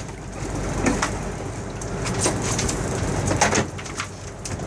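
Steady low rumble of a fishing boat's engine running, with a few sharp knocks and clicks.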